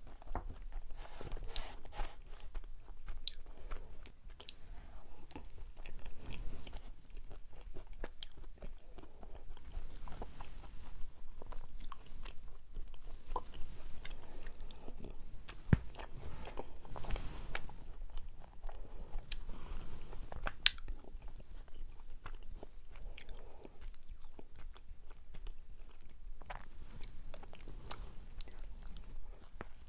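A person chewing and biting a soft mugwort steamed rice cake (ssuk-baekseolgi), with small irregular mouth clicks all the way through.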